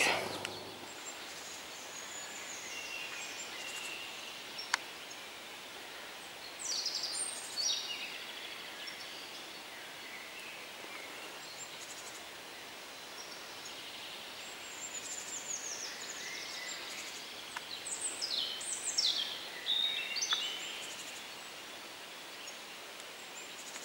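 Songbirds singing in woodland: scattered chirps and quick falling trills, in short clusters a few seconds apart, over a faint steady outdoor hiss.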